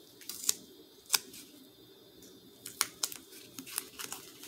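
Strips of tape being pressed and wrapped around a foam projectile by hand: scattered sharp clicks and crackles of the sticky tape and fingers handling it, the loudest about a second in.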